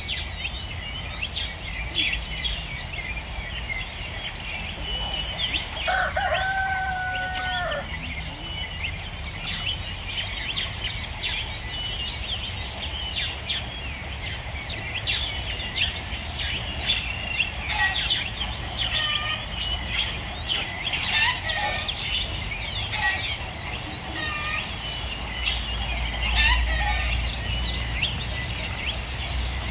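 Farmyard poultry calling: lots of short high chirps and cheeps throughout, with one long, level crow-like call about six seconds in.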